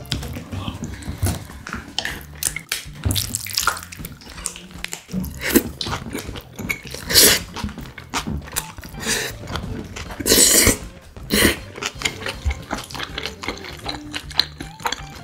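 Close-miked eating sounds of spicy bibim guksu noodles with young radish kimchi: wet chewing and smacking clicks throughout, broken by a few louder slurps, the biggest a little past the middle.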